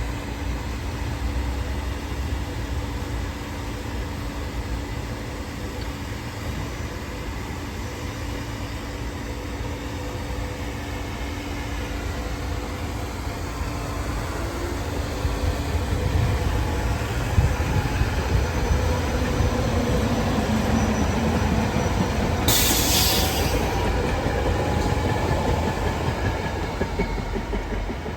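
Train on the rails at a station: a steady low rumble of wheels and rail that grows louder about halfway through, with a brief high hiss a few seconds before the end.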